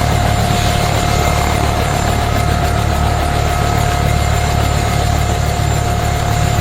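UH-1H Huey helicopter running steadily at idle on the ground after landing: a steady turbine whine at one pitch over a heavy low rumble.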